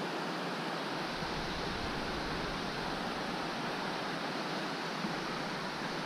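Steady rush of water pouring over a river weir, with a low rumble joining about a second in.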